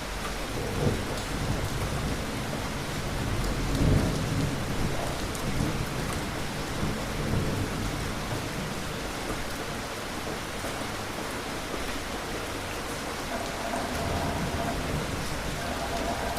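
Steady rain falling, with distant thunder rumbling low through the first half, loudest about four seconds in.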